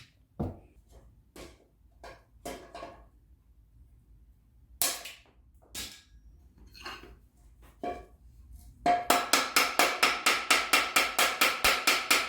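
Scattered knocks and clicks of steel pieces being handled. About nine seconds in, a small hammer starts tapping fast and evenly on steel, about five ringing strikes a second, as a roofing-nail rivet is peened.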